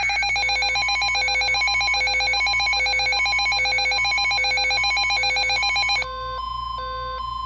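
Emergency Alert System attention signal before a NOAA Weather Radio warning: a loud electronic multi-tone alarm with a fast trill, steady high tones over notes stepping back and forth about twice a second. About six seconds in it drops in level to a single steady tone with two notes alternating below and above it.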